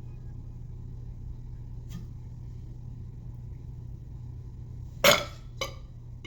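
A short, loud burp about five seconds in, followed half a second later by a smaller second one, over a steady low hum.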